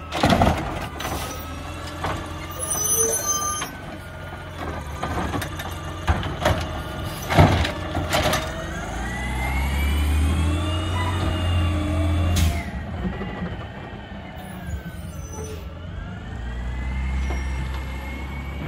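2014 Scorpion side-loading garbage truck: several sharp metal clanks and knocks first, then its engine revs up as the truck pulls away. About two thirds of the way in there is a short hiss of air brakes. The engine pitch then drops and climbs again as it shifts and keeps accelerating.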